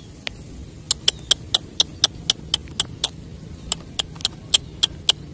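A run of short, sharp, high-pitched clicks, about four a second, with a brief pause midway, over a low steady background.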